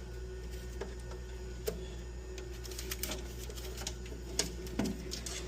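Scattered light clicks and ticks of control-panel wires and parts being handled, over a steady low hum.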